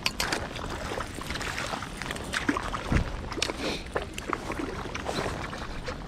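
Water splashing and sloshing irregularly, with a dull thump about three seconds in.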